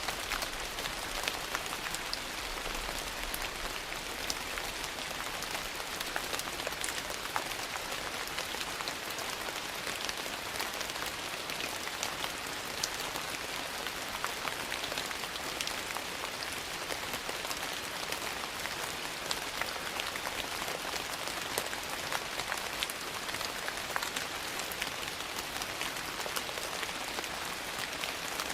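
Steady rain falling, mixed with the crackle of a wood fire: many small sharp pops and ticks are scattered irregularly through the even hiss.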